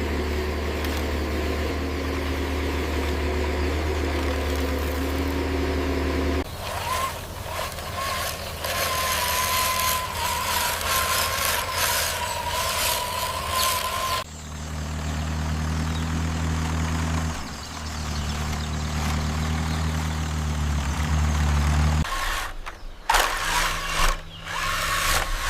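Heavy diesel engine sounds of a tractor and JCB backhoe loader at work. A steady low engine hum runs for the first six seconds. It gives way to a noisier stretch with a high, wavering whine for about eight seconds, then the low engine hum returns, and a few knocks and a rougher running sound come near the end.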